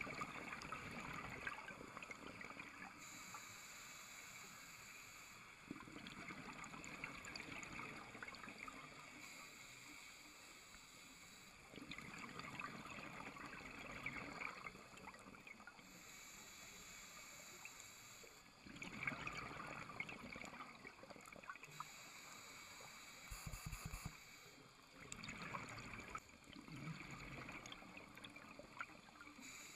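Scuba regulator breathing underwater: about every six seconds a burst of bubbling from an exhalation, alternating with a fainter high hiss as the diver inhales.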